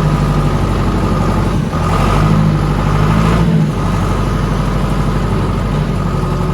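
John Deere 500-C loader backhoe's engine running while the loader is worked, its note shifting twice, about one and a half and three and a half seconds in, as the hydraulics take and release load.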